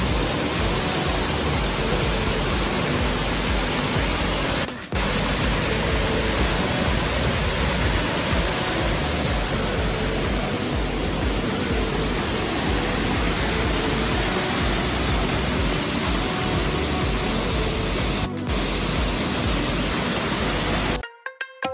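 Steady rushing roar of a waterfall, broken by two brief cuts. It stops abruptly right at the end, where music with tabla begins.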